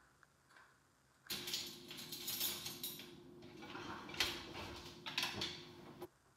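Kitchen utensils clattering and clicking as someone rummages through them for measuring spoons. It starts about a second in, has one loud clack near the middle, and stops suddenly near the end.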